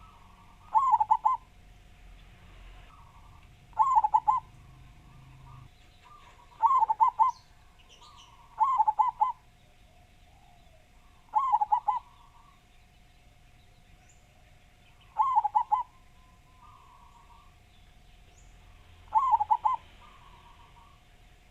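Zebra dove (perkutut) cooing: seven short phrases of quick, rising-and-falling coo notes, repeated every two to four seconds. A faint steady tone runs underneath.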